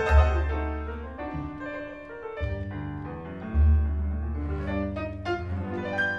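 Tango music with piano, double bass and bowed strings. A strong low bass note comes in at the start and another about three and a half seconds in.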